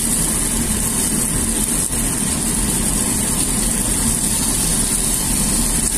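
Chicken wings frying in oil in a nonstick pan, a steady sizzle, over a constant low mechanical hum.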